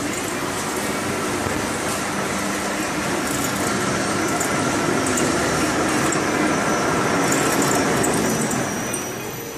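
MN1 Mini Master tubular fabric spreading machine running as it travels along the cutting table laying fabric, a steady mechanical noise that grows louder as it comes closer and eases off near the end.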